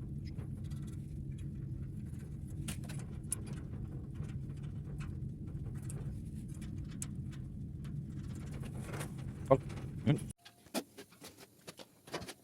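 Steady low hum of a CNC fiber laser cutting machine running, with scattered faint ticks, which stops abruptly about ten seconds in; a few sharper clicks follow.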